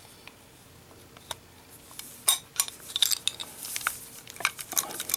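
Small metal objects being handled and set down on a hard surface: scattered light clinks and clicks, sparse at first and coming more often after about two seconds.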